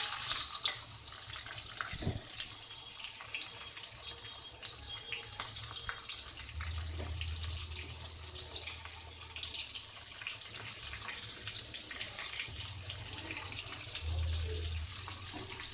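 Sliced onions sizzling in hot oil in a steel kadai: a steady frying hiss, loudest right as the onions go in and then settling lower.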